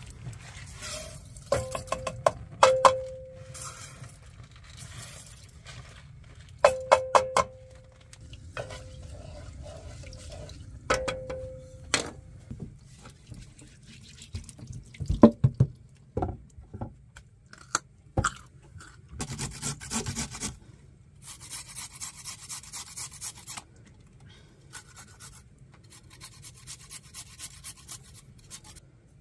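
Kitchen prep sounds: rice poured and tipped into a cookpot in three rattling spills that briefly ring the pot, a few heavy knocks, tap water running briefly, then a carrot rubbed on a hand grater in steady, rhythmic scraping strokes near the end.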